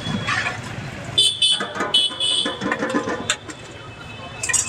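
Road traffic with vehicle horns tooting in short blasts, about a second in and again around two seconds in, followed by a couple of sharp clinks near the end.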